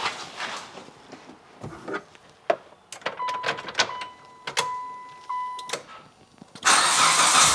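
Clicks and knocks from the car door and interior, with a steady electronic chime tone that breaks off several times. About seven seconds in, the 2006 Mitsubishi Lancer's engine cranks and starts, running loudly on its new spark plugs, wires and coil packs.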